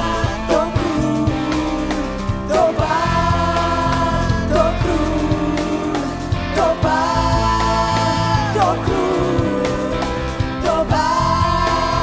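Live contemporary worship music: female vocals hold three long sung notes over an electric guitar and keyboard band accompaniment.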